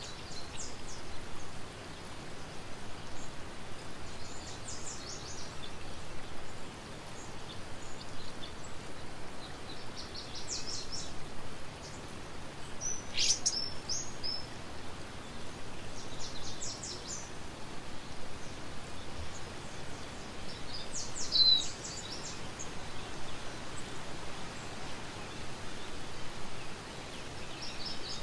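A small songbird singing short bursts of quick, high chirps every few seconds over a steady outdoor background hiss.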